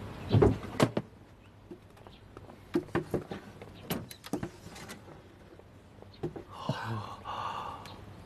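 A heavy iron-studded wooden chest set down on the floor with two thuds, followed by scattered knocks and clicks as hands work at its lid, and a drawn-out creak about seven seconds in as the lid is lifted.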